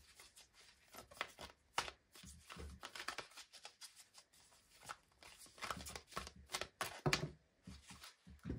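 A deck of oracle cards being shuffled by hand, hand to hand, in quick irregular runs of card-on-card slaps and rustles.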